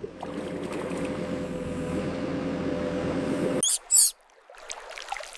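A vehicle engine running with a steady hum, cutting off suddenly about three and a half seconds in as it is parked. Two short, high squeaks follow.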